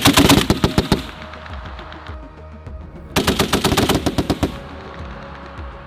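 M2A1 .50-caliber heavy machine gun firing two short bursts: a rapid string of about seven shots a second that ends about a second in, then a second burst starting about three seconds in and lasting just over a second.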